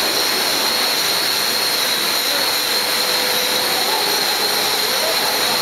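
Billet continuous casting machine in operation: a steady, loud hiss-and-roar of plant noise with a steady high whine on top.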